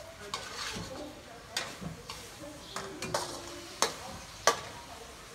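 A metal utensil scraping and clanking against a stainless steel wok as meat and sauce are stir-fried, with a quiet sizzle underneath. There are several sharp clanks, and the two loudest come a little past the middle.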